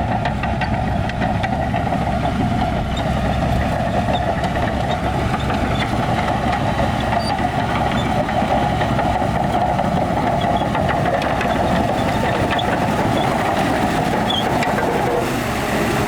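Heavy diesel earthmoving machinery running steadily, a continuous engine noise that holds level throughout.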